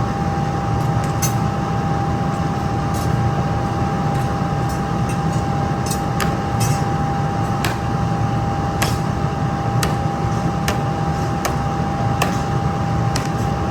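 Factory machinery running steadily with a constant whine and low rumble, with irregular sharp clicks and knocks of metal.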